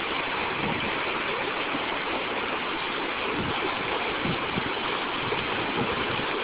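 Fast-moving hurricane floodwater rushing over a road, a steady even rush of water.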